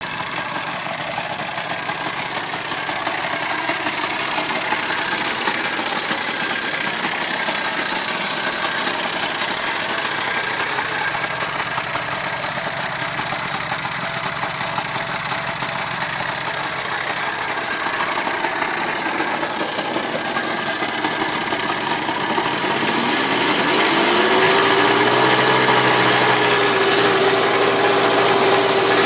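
The single-cylinder two-stroke engine of an IWL Berlin scooter, freshly revived, running at a steady idle. About 23 seconds in it is revved up and held at higher revs for a few seconds, then drops back near the end.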